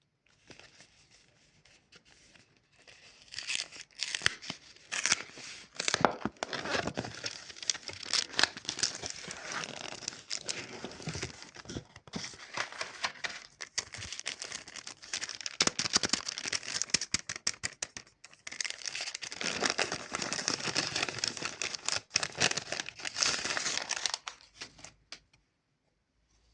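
Chupa Chups lollipop wrapper crinkling and tearing in close-up, a dense run of crackles with a couple of brief pauses.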